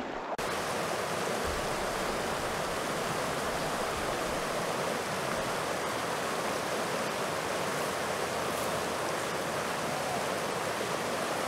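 River water rushing over shallow rocky riffles, a steady even rush.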